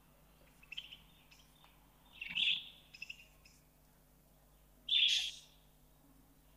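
A bird calling a short call twice, about two and a half seconds apart. Between the calls come a few faint ticks from mustard and cumin seeds beginning to splutter in hot oil.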